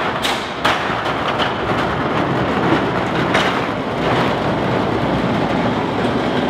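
Large metal sliding hangar door being pushed open, rolling along its floor rail: a steady rolling noise with a few sharp clanks.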